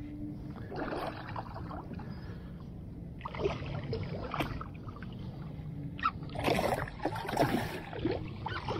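Water splashing and lapping against the hull of a small fishing boat, most likely a kayak, in bursts about a second in, around the middle and strongest near the end, over a low steady hum.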